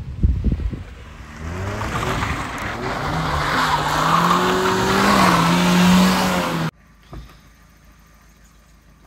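A 2001 Mazda Miata's 1.8-litre VVT four-cylinder on its stock, unpiped exhaust revving up and holding high revs while its rear tyres squeal, with a thump at the start. It cuts off suddenly about two-thirds of the way in, leaving a quiet stretch with one faint knock.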